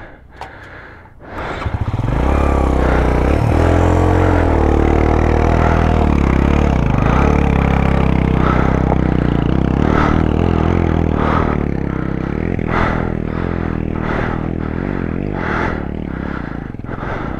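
Suzuki GS150SE's 150 cc single-cylinder four-stroke engine working hard in first gear up a steep, rocky trail. It comes in loud about a second and a half in and holds steady with small changes in pitch, while stones scrape and clatter under the tyres.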